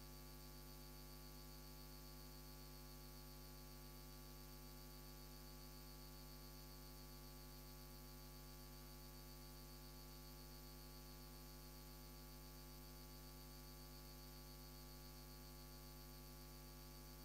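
Near silence apart from a steady electrical mains hum.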